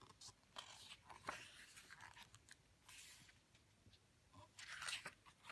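Soft paper rustling as the glossy pages and cover of a K-pop album photobook are handled and turned, in several short brushes with the loudest just before the end.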